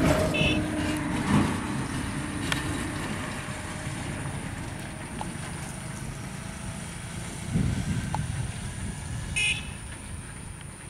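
Low rumble of road traffic passing, swelling briefly about three-quarters of the way through, with a short high toot near the end.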